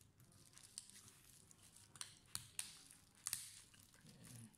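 Faint clicks and light handling noise as a metal laptop hinge is worked onto a Dell Inspiron 3511 display panel, with a few sharp clicks in the second half.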